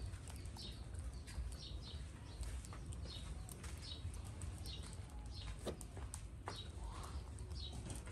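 A monkey grooming a man's hair: soft rustling and small clicks as its fingers pick through the strands, over a low steady rumble. A short high chirp repeats about once a second in the background.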